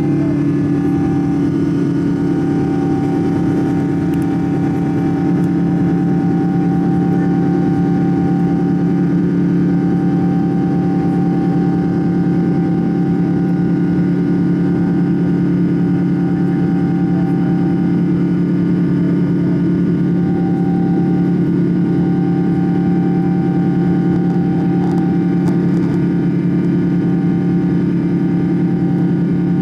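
Airliner engines running at climb power after takeoff, heard inside the passenger cabin: a loud, steady drone with several steady hums under it and a fainter higher whine that drops out and returns a few times.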